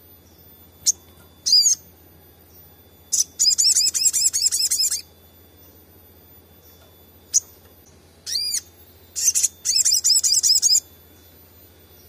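Olive-backed sunbird singing: a couple of sharp single calls and a short chirp, then a fast run of high repeated notes lasting nearly two seconds about three seconds in. The same pattern comes again about seven seconds in.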